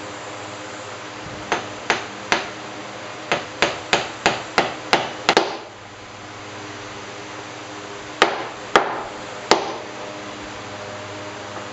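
Hammer tapping a round wooden knot plug down into its recess in a plank. Three sharp knocks come first, then a quick run of about eight at three or four a second, then three more spaced blows near the end.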